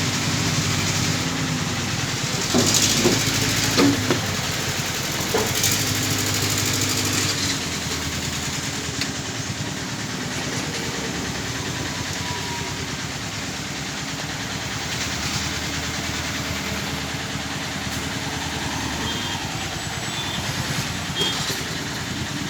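Heavy machinery's diesel engine running steadily, with a few sharp knocks about two to four seconds in. The engine's steady tone drops away about seven seconds in, leaving a continuous rumble of machinery.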